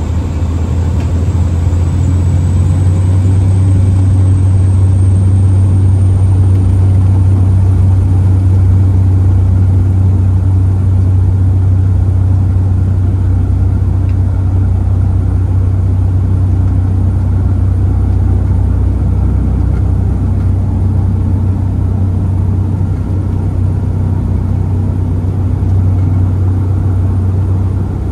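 Cessna 208B Grand Caravan's single Pratt & Whitney PT6A turboprop and propeller at takeoff power, heard from inside the cabin during the takeoff roll. It is a loud, steady low drone, with a faint high turbine whine rising over the first few seconds as the power comes up.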